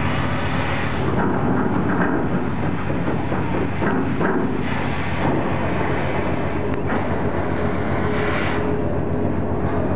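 Steady low drone and rumble of a car ferry's engines and machinery running while it manoeuvres to berth.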